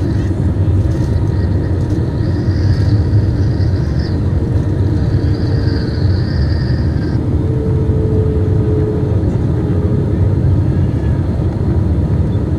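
Steady low-pitched cabin noise inside an Airbus A320 in flight, heard from a window seat over the wing: the jet engines and the air rushing past the fuselage. A faint high whine comes and goes in the first half.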